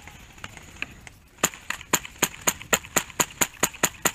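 HPA-powered airsoft rifle (Echo1 SR16 with a Wolverine SMP drop-in kit) firing a rapid string of evenly spaced shots, about four a second, starting about a second and a half in.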